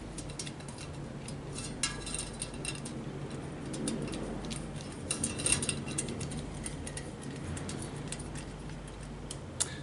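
Light, irregular metallic clicks and ticks of hands and a small tool working at a bicycle wheel's hub, a little busier around the middle, over a low steady hum.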